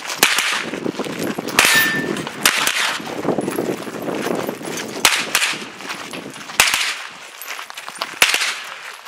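Sig MPX pistol-caliber carbine with a muzzle compensator fired in quick pairs and single shots, with pauses between strings, and a short metallic ring after one of the shots about one and a half seconds in.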